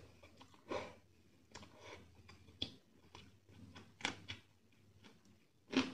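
Close-miked eating sounds: chewing and wet mouth smacks of rice and chicken curry eaten by hand. They come as short, separate smacks at irregular gaps, the loudest near the end.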